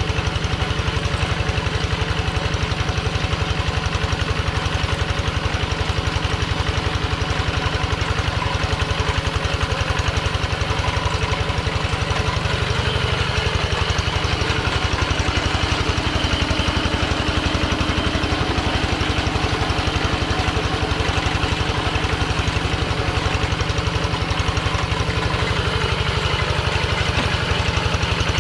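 Kubota two-wheel hand tractor's single-cylinder diesel engine chugging steadily at an even, fast beat as it pulls a plow and cage wheels through a flooded rice paddy.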